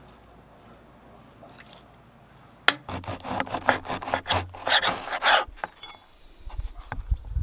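Long kitchen knife sawing through the hard crust of a loaf of bread on a wooden cutting board, a quick series of rough back-and-forth scraping strokes. A few low thumps follow near the end.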